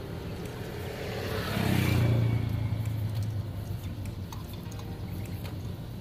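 A motor vehicle's engine passes by, growing to its loudest about two seconds in and then fading back into a steady low rumble. A few faint clicks and rustles of wires being twisted come later.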